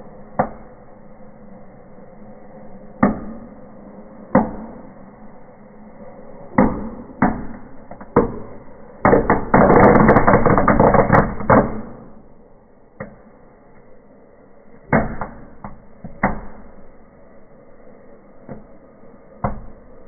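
Firecrackers going off one after another, sharp single bangs a second or more apart, with a dense run of rapid crackling bangs lasting about three seconds near the middle.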